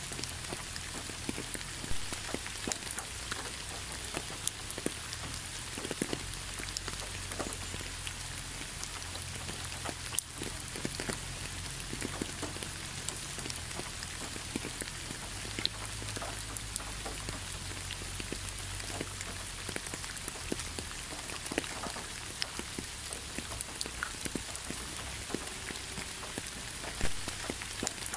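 Steady rain falling on leaves and the ground, with many separate drops hitting close by. A few louder drops stand out, one about two seconds in and one near the end.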